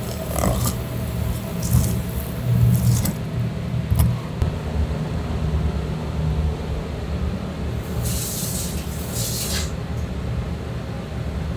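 A knife slicing along a flatfish's bones on a plastic cutting board: a few short rasping strokes, then a longer, stronger one near the end. A steady low rumble runs underneath.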